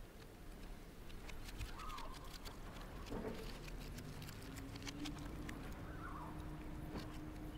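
A pen tapping dots onto paper in quick, irregular light taps, stippling a drawing.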